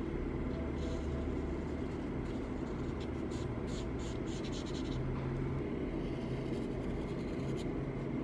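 Fine-tipped marker stroking across watercolour paper: short scratchy strokes come and go over a steady low hum.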